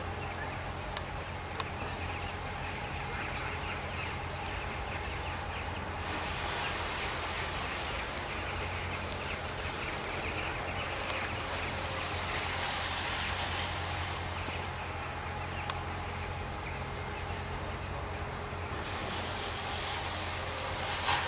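Steady mechanical drone with a constant low hum and a faint steady high tone, under a hiss that swells and eases a couple of times.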